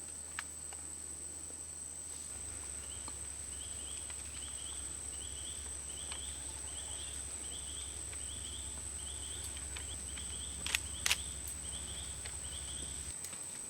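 Tropical insects: a steady high-pitched drone with a short chirp repeated about every two-thirds of a second. Two sharp knocks a little before the end.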